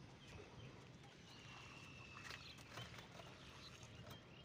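Near silence: faint outdoor background with a few soft clicks and faint high chirps.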